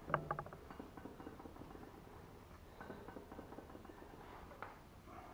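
Quiet room tone with a few faint metallic clicks and knocks of parts being handled, a cluster in the first half second and one more near the end.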